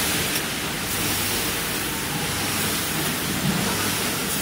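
Multihead weigher and packaging line machinery running: a steady noise like rushing air, with a low hum underneath.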